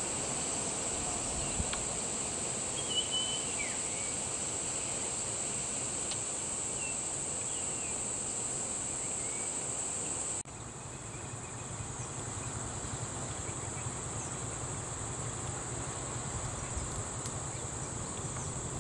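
Steady, high-pitched drone of insects, with a few short bird chirps in the first half. The sound cuts abruptly about halfway through, then the same insect drone goes on over a low rumble.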